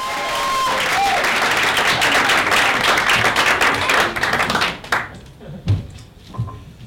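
Club audience applauding as a comedian takes the stage, a dense patter of clapping that stops abruptly about five seconds in. After it come a few low thumps from the microphone being handled and taken off its stand.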